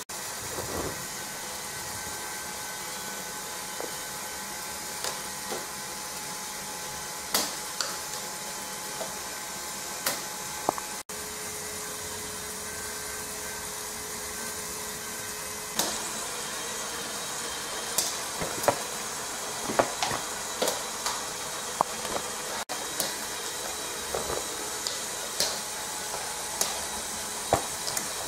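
Meccano model crawler tractor driving along under power: its electric motor and gear train run with a steady whine and hiss, while the steel track links click and clatter against the wooden floor, the clicks coming more often in the second half.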